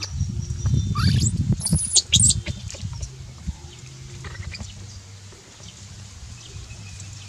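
Baby macaque giving a few short, high-pitched squeaks between about one and two and a half seconds in, over scrabbling and rustling as it rolls on gravel.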